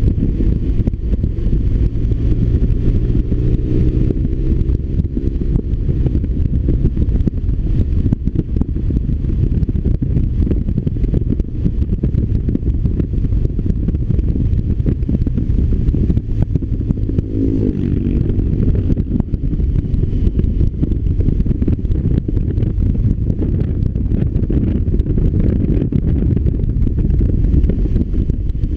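BMW R1200RT's flat-twin boxer engine running under way, heard from the bike. The engine pitch shifts near the start and again a little past halfway as the revs change.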